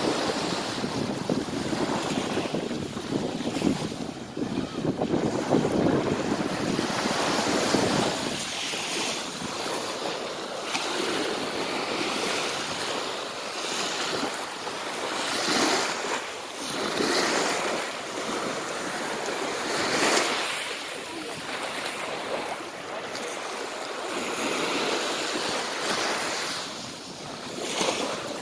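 Small waves breaking and washing over a pebble beach, the surf swelling and falling back every few seconds, with wind rumbling on the microphone, heaviest in the first several seconds.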